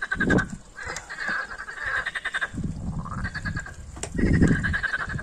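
Green frogs (water frogs) calling in chorus from a garden pond: repeated rattling croaks, each about a second long, made of rapid pulses. Gusts of wind rumble on the microphone in the second half.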